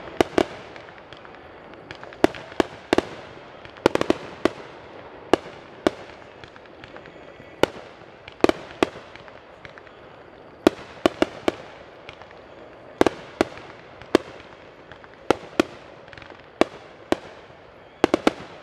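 Fireworks display: aerial shells bursting with sharp bangs at irregular intervals, several coming in quick runs of two or three, each trailing off in a short echo.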